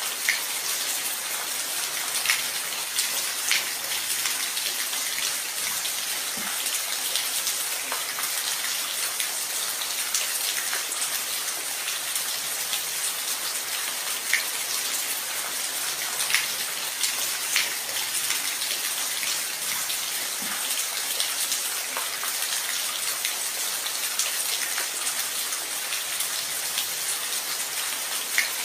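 Steady rain falling, an even hiss with scattered louder drops ticking onto a surface nearby.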